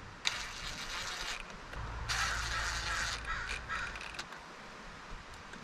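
Cordless DeWalt drill driving the small 10 mm bolts of a locking hub cover in snug, in two short runs: one of about a second near the start, then a longer, broken run from about two to nearly four seconds in.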